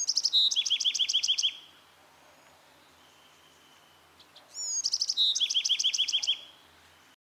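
Bewick's wren singing two song phrases, one at the start and one about four and a half seconds in. Each phrase is a few high slurred notes followed by a fast trill of repeated notes, lasting about a second and a half.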